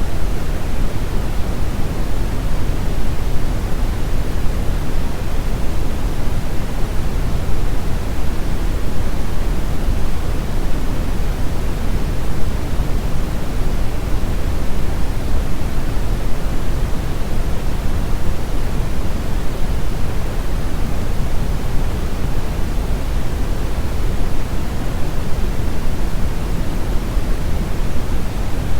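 Steady generated noise sound effect: a constant, even rushing hiss with no changes, fuller in the low end than the high.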